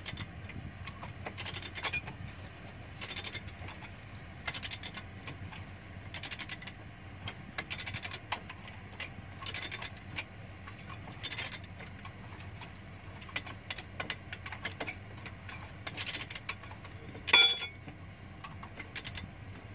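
Socket ratchet wrench being worked on the bolts of an excavator track roller, a short run of clicks with each stroke, repeating every second or so. About 17 seconds in comes one loud, ringing metal clank.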